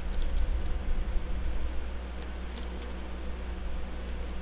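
Computer keyboard keys and mouse buttons clicking irregularly, busiest in the first two seconds with a few more later, over a steady low hum.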